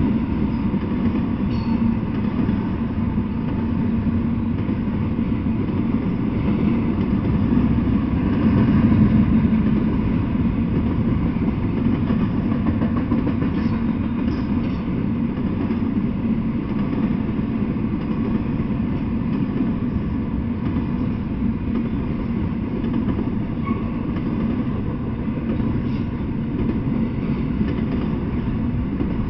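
Double-stack intermodal container freight train rolling past: a steady, low rumble of steel wheels on the rails that keeps on without a break.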